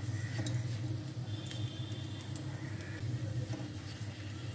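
Cashews and raisins frying in ghee in a nonstick wok, stirred with a silicone spatula: light sizzling with scattered soft scrapes and taps, over a steady low hum.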